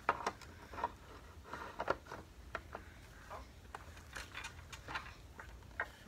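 Hands fitting a dirt-meter attachment with its paper filter onto the nozzle of a Kirby Heritage 2 vacuum: irregular light clicks, knocks and paper rustles, a few each second.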